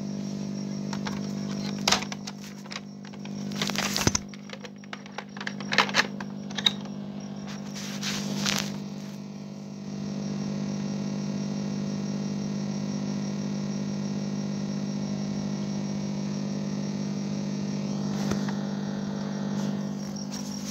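Steady electrical hum from the recording's noise floor. In the first half it is broken by scattered sharp clicks, cracks and brief noisy rustles, and from about halfway on it continues evenly.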